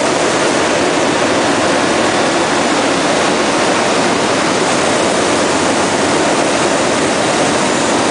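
Inside the cabin of an MV-22 Osprey in flight: its twin turboshaft engines and proprotors, with wind rushing through the open door. A loud, steady rushing noise with no change in pitch.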